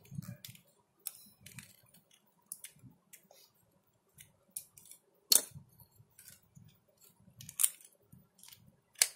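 Plastic pieces of a Rusty Rivets toy building kit clicking and knocking together as they are fitted by hand: scattered sharp clicks with short gaps, the loudest about five seconds in and again near the end.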